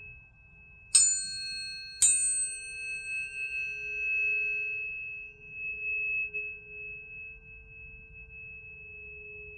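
Planetary tuning forks struck twice about a second apart, each strike a bright metallic ping that fades within a few seconds. A steady, pure ringing tone carries on beneath and after them, with a slow waver in its lowest note.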